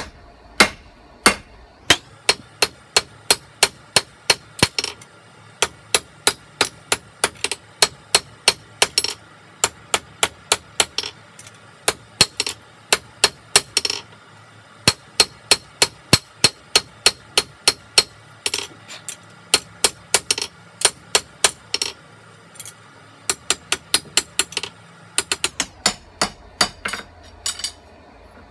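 Blacksmith's hand hammer forging leaf spring steel on an anvil: steady blows about two to three a second, broken by a few short pauses, with a faint ring carrying between strikes.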